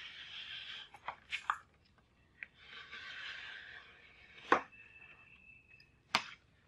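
Hand-held edge banding trimmer shaving the overhanging wood veneer edge banding flush with a board's edge: two scraping strokes with sharp clicks and knocks between them, the loudest click about halfway through. Near the end the trimmer is set down on the workbench with a knock.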